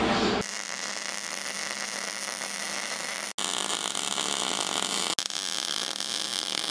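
Wire-feed welder arc frying steadily as it welds steel tubing, a continuous crackling hiss. It cuts off and starts again twice.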